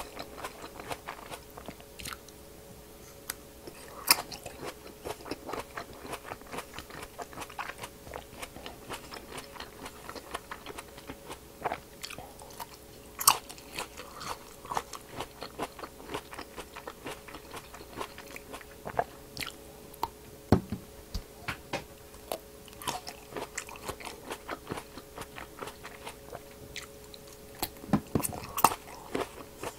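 Close-miked biting and chewing of whole black grapes: a dense, irregular run of crisp wet pops and squishes as the skins burst between the teeth, with a few louder sharp pops.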